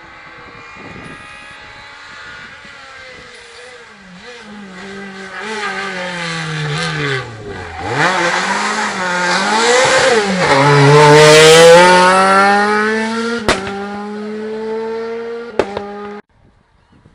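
Rally car engine approaching, its revs falling and jumping as it brakes and changes down, then pulling hard past, loudest about two-thirds of the way through. Two sharp cracks near the end, and the sound cuts off suddenly.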